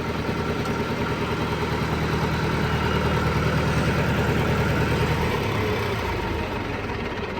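Massey Ferguson 5900 tractor's diesel engine running steadily, its note dropping about five seconds in as the tractor slows.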